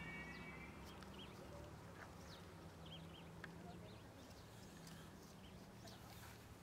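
Quiet rail-yard ambience: a faint low steady hum with scattered short, high bird chirps. A high ringing tone glides up and fades out in the first second.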